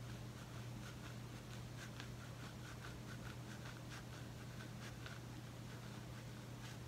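A plastic fine-tooth comb scratching across short, coarse hair and a scalp full of dandruff flakes: faint, quick repeated strokes, about three or four a second. A steady low hum runs underneath.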